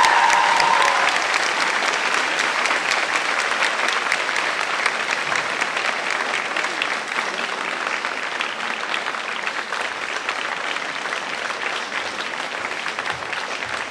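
Large audience applauding at the end of a girls' choir's piece; the choir's last held note dies away about a second in. The clapping is dense and steady and gradually gets quieter.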